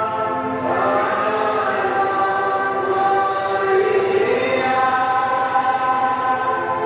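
Devotional hymn or chant sung by voices over steady held instrumental notes.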